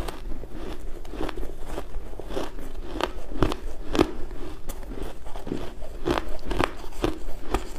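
Close-miked chewing of a mouthful of crushed ice: sharp, irregular crunches, a few a second.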